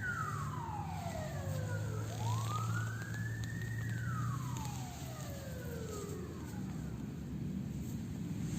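An emergency vehicle's wailing siren sweeping slowly up and down in pitch, rising and falling roughly every four seconds and fading after the second sweep, over a steady low hum.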